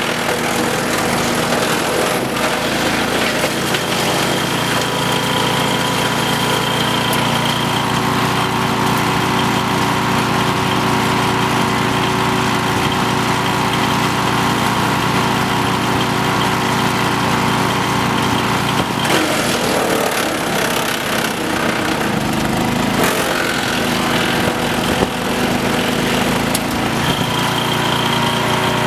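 Petrol wood chipper's Briggs and Stratton engine running steadily, with a rougher, noisier stretch about two-thirds of the way through.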